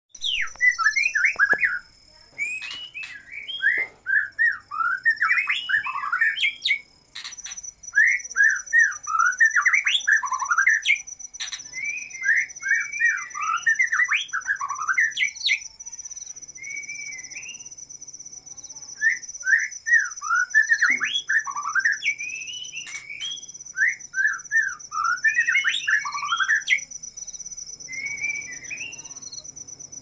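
Male white-rumped shama singing its courtship song: loud phrases of fast, twisting warbled notes a few seconds long, broken by short pauses. A steady high cricket chirring runs underneath.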